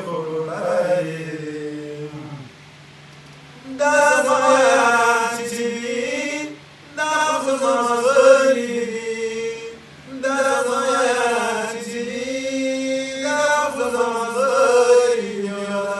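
A man chanting Pashto poetry in a sung recitation: long held phrases that glide up and down, with short breaks for breath about 3, 6½ and 10 seconds in.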